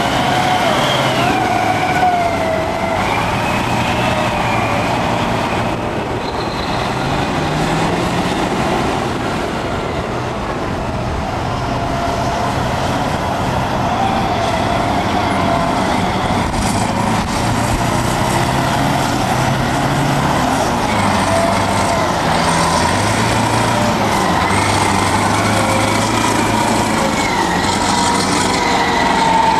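Caterpillar 631E wheel tractor-scraper working close by: its big diesel engine runs hard, its pitch stepping up and down. A wavering high-pitched whine and squeal sits over the engine sound.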